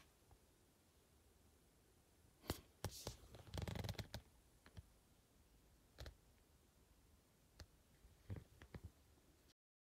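Near silence broken by faint scattered clicks and light rustling, thickest between about two and a half and four seconds in, with a few more clicks near the end.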